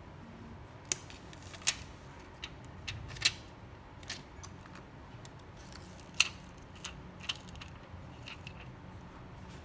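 Irregular sharp clicks and light taps of small hard objects, about eight in all and a few of them louder: a phone and small repair tools being handled on a workbench. A low steady hum runs underneath.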